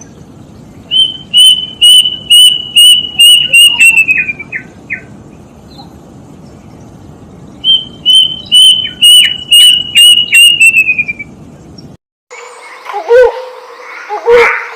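A bird singing two bouts of rapid, repeated high whistled notes, each bout speeding up and dropping slightly in pitch at its end. After an abrupt cut near the end, a different, lower series of repeated calls begins.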